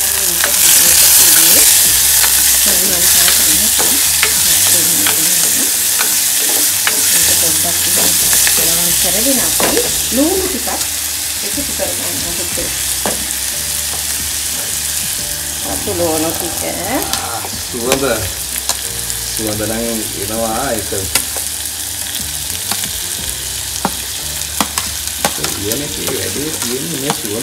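Curry leaves, green chillies and whole spices sizzling in hot oil in a clay pot, loudest in the first few seconds after the curry leaves go in. A spoon stirs and scrapes around the pot, with scattered clicks and squeaky scrapes.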